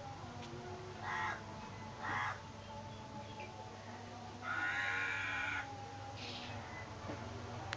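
Animal calls: two short harsh calls about a second apart, then a longer call of about a second and a fainter short one after it.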